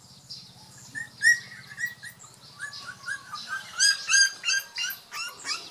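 Young puppies squeaking and yipping while they wrestle: many short, high-pitched, slightly falling calls, a few a second, getting busier from about a second in.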